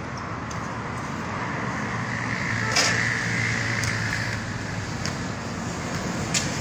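Road vehicle passing: a steady rushing noise with a low engine hum that swells over a couple of seconds in the middle and then fades. A few sharp knocks of a basketball bouncing on the hard court, the loudest about three seconds in.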